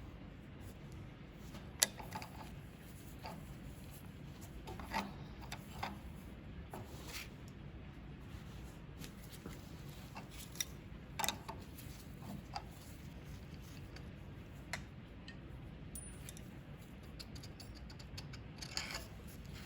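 Scattered light clicks and clinks of small hard parts and tools being handled, with a sharper click about two seconds in, a few knocks around the middle and a brief rustle near the end.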